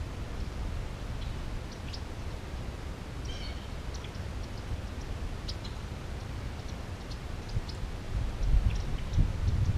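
Open-air ambience: a low rumble of wind on the microphone with faint, scattered bird chirps. The rumble swells near the end.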